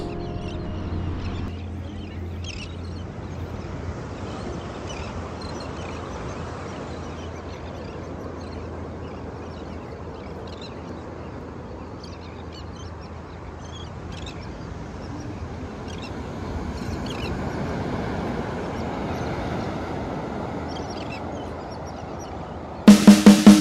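Steady wash of calm sea water and air at the shore, swelling a little past the middle, with scattered short high chirps and calls over it. Drum-led music cuts in loudly near the end.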